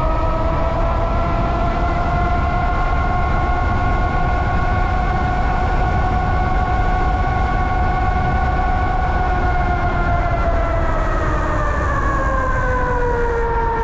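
An 8000-watt e-bike hub motor whining under power, its pitch rising as the bike picks up speed, then holding steady. About eleven seconds in the whine slides down as the bike slows. Wind rushes over the microphone underneath.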